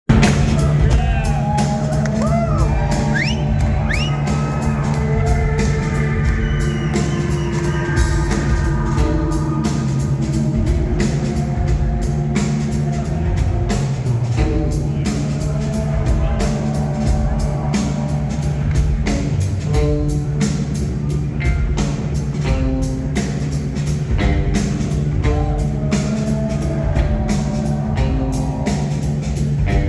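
Live rock band playing, the drum kit keeping a steady beat over a deep bass line.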